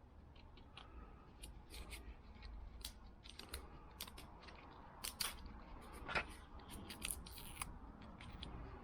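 Faint, scattered crackles and clicks of old tape being worked off a screwdriver handle, with a few sharper snaps.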